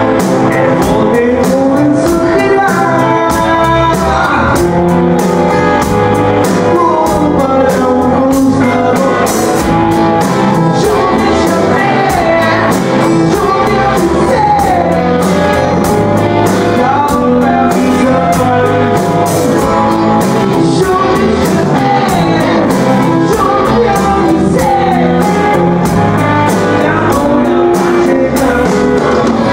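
Rock band playing live: electric guitars and drum kit, with a man singing into a microphone over them.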